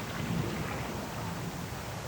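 Night wind blowing steadily, a low rumbling noise with a fainter hiss above it.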